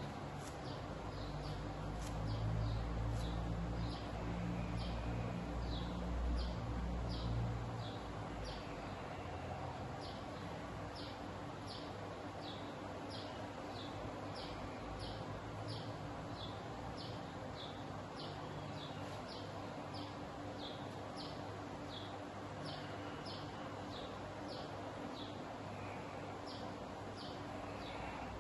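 Short, high chirps repeating steadily, roughly every half second, over a low rumble that is the loudest sound for about the first eight seconds and then drops away.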